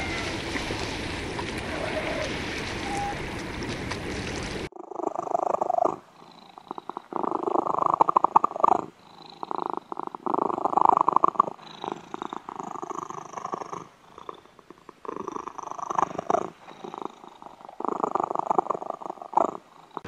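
A steady wash of surf for about the first five seconds, then a domestic cat purring, the purr coming in rhythmic phrases of a second or two with each breath, pausing briefly between them.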